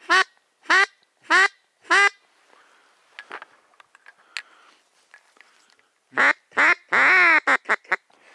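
Loud duck quacking: four evenly spaced quacks about two-thirds of a second apart, then a few seconds of faint rustling. Near the end comes another run of two short quacks, one longer quack and several quick short ones.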